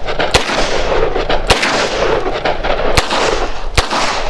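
Four double-action shots from a Taurus 605 Poly Protector .357 Magnum snub-nose revolver, each trailing off in echo. The first two are .357 Magnum rounds, then after a longer pause come two .38 Special rounds, the last two closest together.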